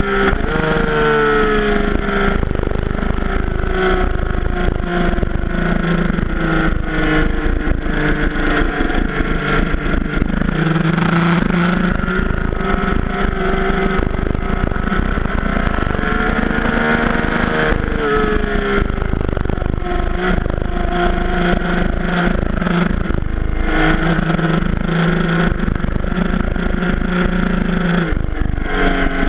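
Yamaha FJ-09's 847 cc inline-three engine at full track pace, its revs rising and falling several times as the rider accelerates out of corners and shifts or brakes into them, with heavy wind noise on the microphone.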